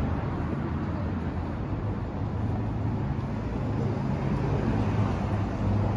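Outdoor city street ambience: a steady low hum of road traffic, growing a little louder near the end.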